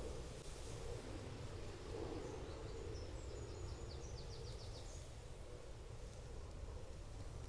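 Outdoor background with a steady low rumble, and a small bird singing a quick run of repeated high chirps from about two to five seconds in.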